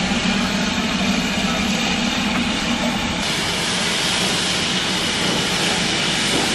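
Steam locomotive of a sugar-mill railway running close by: a steady rumble with a low hum. About three seconds in the sound switches abruptly to the even rushing noise of another steam locomotive rolling slowly past.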